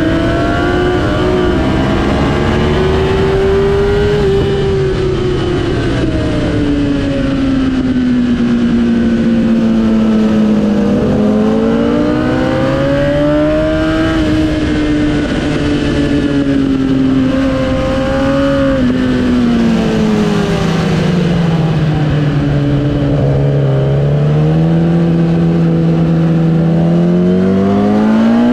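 Sport motorcycle engine heard onboard at track speed, its note climbing and falling as the rider accelerates and rolls off. It rises over the first few seconds, sinks slowly until about a third of the way in, climbs again, drops to its lowest well past halfway and starts rising again near the end, with a steady rush of wind over it.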